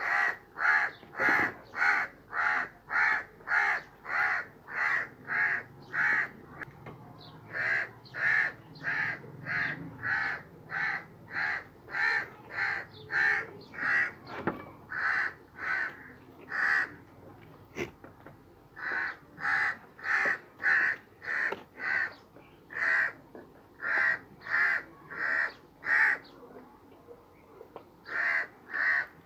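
A crow cawing over and over, short caws about two a second in long runs, with brief pauses between the runs.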